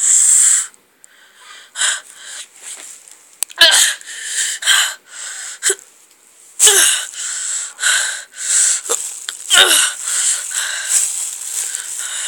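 A person's breathy, wheezing sounds close to the microphone, in short, irregular bursts with pauses between, a few of them ending in quick downward sweeps.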